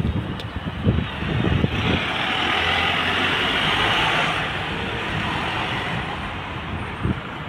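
Single-deck bus driving past, its engine and tyre noise swelling about two seconds in and fading slowly as it pulls away. Gusts of wind rumble on the microphone at the start.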